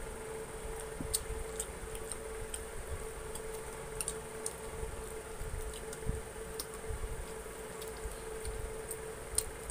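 Close-up eating sounds: chewing, lip smacks and finger licking, heard as scattered small wet clicks, as fried chicken wings are eaten by hand. A steady hum runs underneath.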